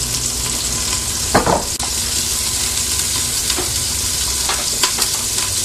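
Diced bacon, onion and garlic sizzling steadily in olive oil in a pot on medium heat, with a few light clicks of a utensil against the pot as it is stirred.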